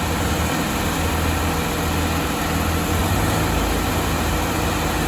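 Diesel engines of a Swaraj 855 and a Sonalika 750 tractor running hard, pulling against each other in a chained tug-of-war. A steady deep engine drone whose lowest rumble grows stronger about three seconds in.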